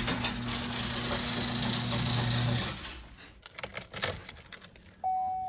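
A motor-driven machine runs with a steady hum and rattle, then shuts off about two and a half seconds in. A few clicks follow as the key goes into the ignition. Near the end the truck's dash chime sounds as a single steady tone as the key is turned on, ready for the first start after a throttle-body repair.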